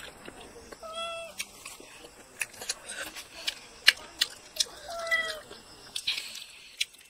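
A cat meowing twice, short calls about four seconds apart that fall slightly in pitch. Between them come sharp wet clicks and smacks of someone eating with their fingers.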